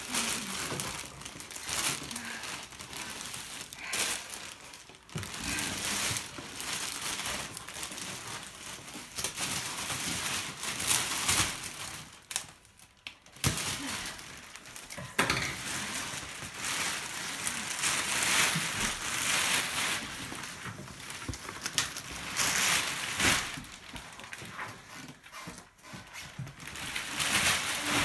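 Plastic packaging crinkling and rustling in irregular bursts as a new dog bed is unwrapped, with a brief lull about twelve seconds in.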